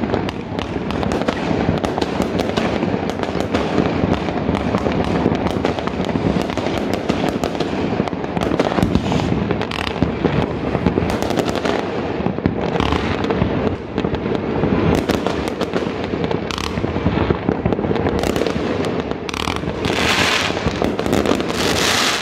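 Many fireworks going off at once, a continuous dense mass of bangs, pops and crackles with no pause. The crackling grows louder and brighter near the end.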